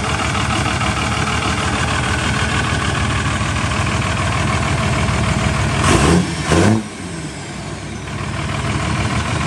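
1998 Dodge Ram's 12-valve Cummins turbodiesel running loud and steady, then revved hard twice in quick succession about six seconds in, each rev rising and falling within about half a second.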